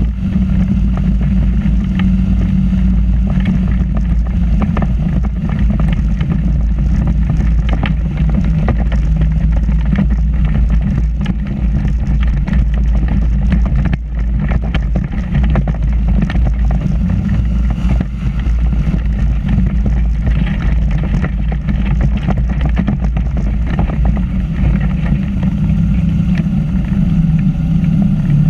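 Microlight trike's pusher engine and propeller running steadily at an unchanging speed, with a strong low rumble beneath the engine note.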